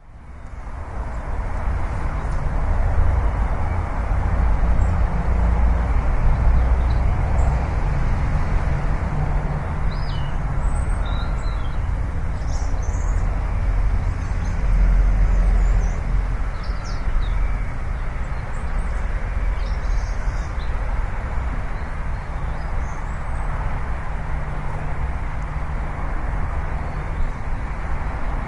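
Steady outdoor ambience, a low rumble and hiss, with scattered bird chirps. It fades in at the very start.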